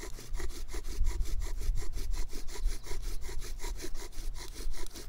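Bow-drill fire-lighting: a wooden spindle spun by a bow against a wooden hearth board, giving a fast, steady back-and-forth rasping of wood on wood. The friction is grinding dark dust into the notch, which is just building into an ember.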